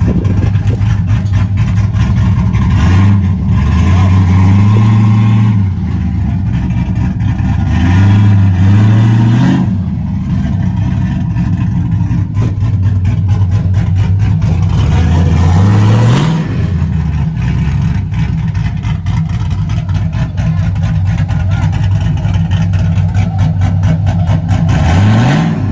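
Truck engine running steadily, its pitch climbing under throttle and dropping back four times.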